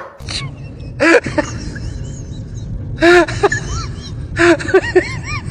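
Dogs whining and yipping in short rise-and-fall calls: a cluster about a second in, another about three seconds in, and a quick run of several near the end.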